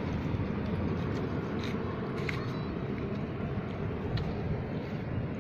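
Steady low outdoor background rumble, with a few faint ticks about two and four seconds in.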